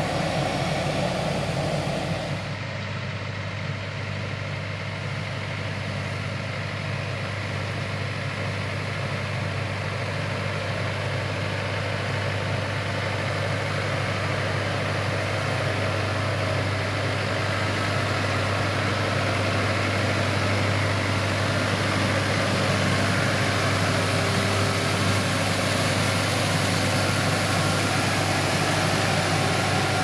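Tractor engine running steadily under work, with a low hum. The sound changes abruptly about two and a half seconds in, then grows gradually louder toward the end as the tractor comes closer.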